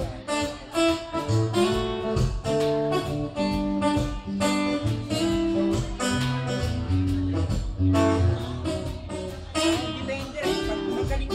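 Live acoustic band playing: acoustic guitar over a steady percussive beat, with a sung melody.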